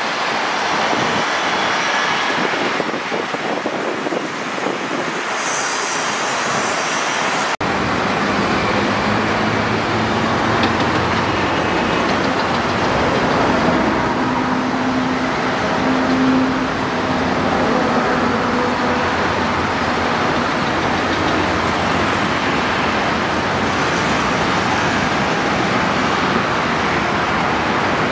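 Airbus A320neo airliner on final approach with gear down, a steady rushing jet noise mixed with road traffic. About seven and a half seconds in the background changes abruptly and grows fuller in the low end, with a faint steady hum for several seconds after.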